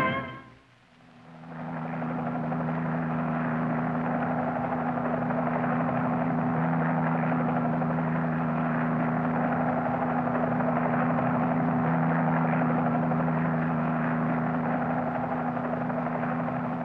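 Cartoon sound effect of a helicopter in flight: a steady engine drone that fades in about a second and a half in, just after a brass music cue cuts off.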